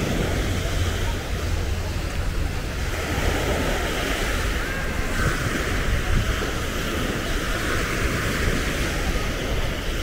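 Waves washing onto a sandy beach in a steady wash of surf, with wind buffeting the microphone.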